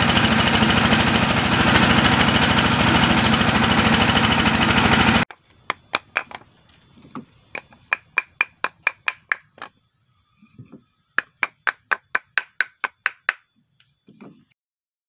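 Charcoal briquette extruder machine running with a loud steady hum that cuts off suddenly about five seconds in. Then come two quick runs of sharp clinks, about four a second, as hard, dried hexagonal coconut-shell charcoal briquettes are knocked together.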